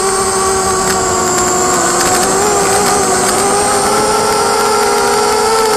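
Four DYS BE1806 brushless motors spinning 5045 props on a small FPV racing quadcopter, giving a steady, high-pitched whine. The pitch rises and dips slightly as the throttle changes.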